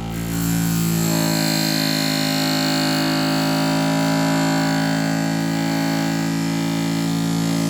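Electric knife-grinding machine running, with a steady motor hum, while a kitchen knife blade is held against its 1200-grit wheel. The grinding hiss comes in at the start and holds steady.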